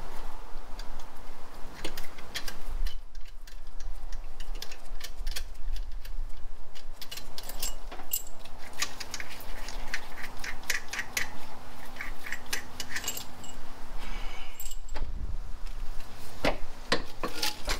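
Light metallic clicks and clinks from hand tools and metal parts being handled during an engine teardown. They come in irregular runs and are thickest in the middle of the stretch.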